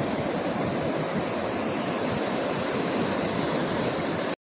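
Ocean surf on a beach, a steady rush of breaking waves with no pauses; it cuts off abruptly near the end.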